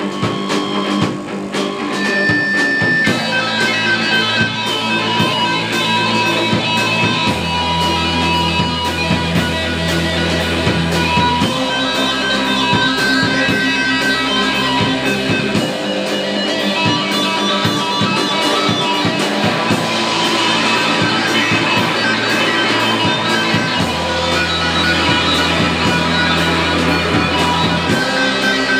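Live rock band playing: two electric guitars over a drum kit and a synthesizer, with deep held bass notes that change about every four seconds.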